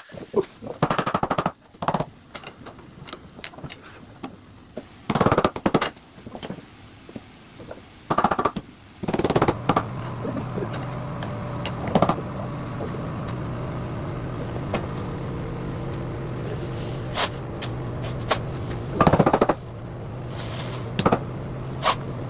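Sharp metal clanks and knocks from work on a backhoe's dipper cylinder. About nine seconds in, a steady low machine hum starts and runs on under more clanks.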